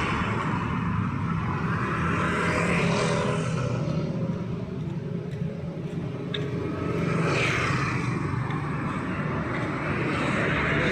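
Street traffic passing by: vehicles go by one after another, each swelling and fading, about three clear passes over a steady low engine rumble.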